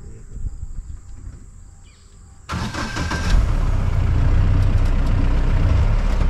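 Quiet outdoor ambience, then about two and a half seconds in a safari vehicle's engine starts and runs, loud and steady, cutting off suddenly at the end.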